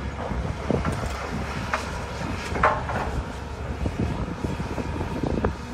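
Wind rumbling on the microphone, with scattered light knocks and clicks over it.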